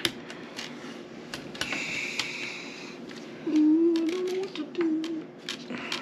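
Irregular light clicks and taps of small game pieces being handled and set down on a board, with a short rustle about two seconds in. A person hums a short wavering tune a little past the middle.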